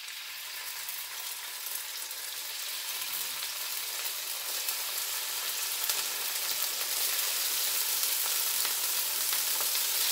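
Chopped raw chicken breast sizzling in hot olive oil in a frying pan, with small crackles. The sizzle grows steadily louder as more pieces go into the oil.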